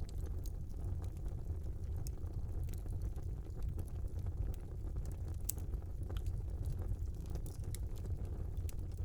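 Wood fire burning in a small fireplace: a steady low rumble of the flames with scattered small crackles and pops, one sharper pop about five and a half seconds in.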